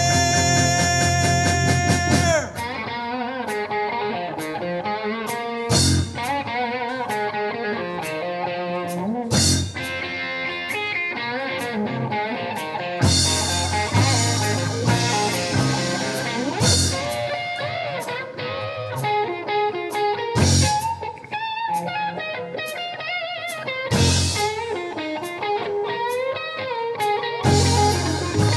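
Live rock band in an instrumental break: a held full-band chord for about the first two seconds, then an electric guitar lead line with bending notes over drums, bass guitar and keyboards.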